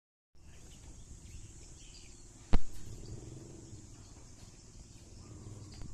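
Rural outdoor ambience: a steady high-pitched hum over a low rumble, broken by one sharp knock about two and a half seconds in.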